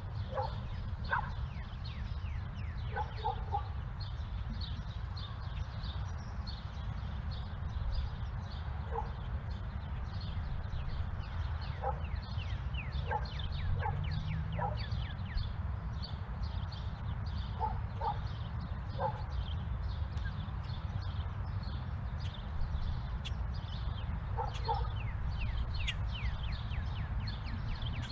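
Suburban outdoor ambience: many small birds chirping throughout, a dog barking in short groups every few seconds, over a steady low rumble.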